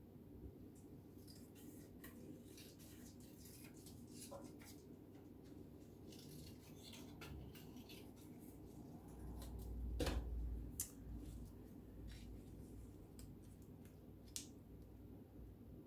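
Scissors cutting paper in short snips, with paper rustling. A louder dull thump comes about two-thirds of the way through.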